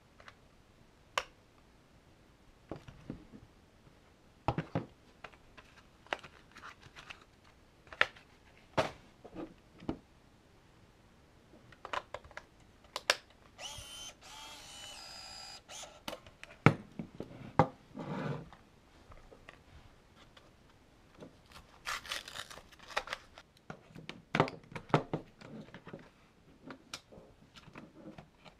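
Minolta Freedom Action Zoom 35mm point-and-shoot being loaded with film: scattered plastic clicks, snaps and taps as the camera and film are handled, with a steady motor whir of about two seconds roughly halfway through as the camera's motor winds the film on.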